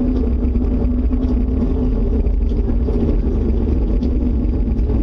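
Loud, steady outdoor rumble with a low drone running through it, unchanging. It is the unexplained noise that residents took for an approaching tornado.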